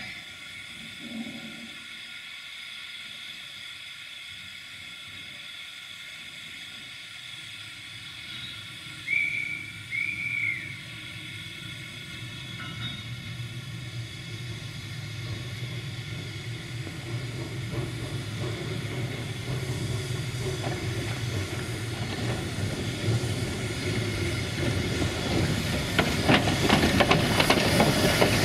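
Narrow-gauge steam locomotive hissing steam at rest, with two short high whistle toots about nine and ten seconds in. The running noise then swells steadily louder as the locomotive gets under way or approaches, with rapid clattering near the end.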